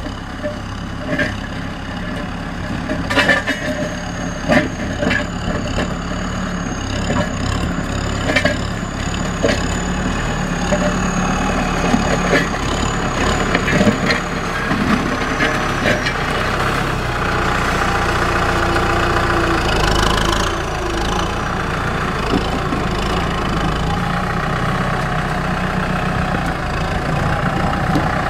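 Kubota M6040SU tractor's diesel engine running steadily under load while it pushes its front blade and pulls a disc plough through brushy soil. Irregular knocks and clicks sound during the first half.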